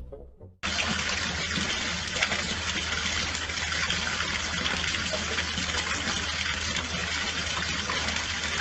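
Steady rush of running water that starts abruptly about half a second in, with a low hum underneath.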